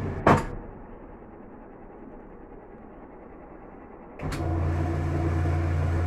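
Kenmore top-load washing machine's three-speed motor: its hum cuts off and a loud click follows, then after about four quiet seconds a second click and the motor starts again, humming steadily as the basket goes into spin.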